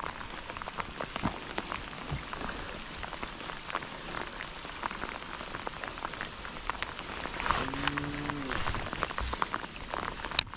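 Steady rain falling, a continuous hiss dotted with many small raindrop ticks.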